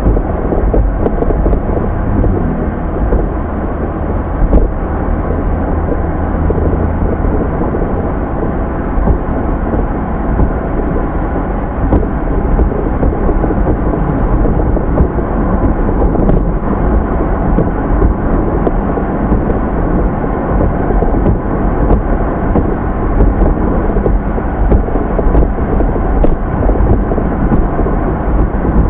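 Car in motion recorded by a dashcam inside the cabin: a steady low rumble of tyre and engine noise with a few faint ticks.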